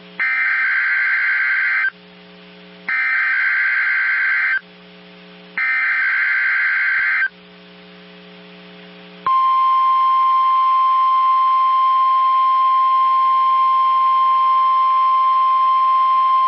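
NOAA Weather Radio emergency alert signal: three short bursts of warbling SAME data tones about a second apart. About nine seconds in, the steady 1050 Hz warning alarm tone starts and holds. This is a weekly test of the weather radio warning system.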